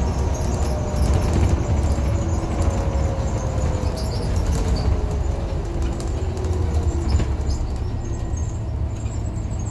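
Inside a moving Scania N94UB single-deck bus: the rear-mounted diesel engine gives a steady low rumble, with a faint whine that slowly falls in pitch and light rattles from the cabin fittings.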